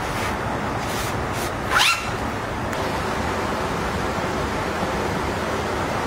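Fabric pouch and tablet being handled, heard as a few light rustles and taps, with a short rising scrape a little under two seconds in, over a steady hiss.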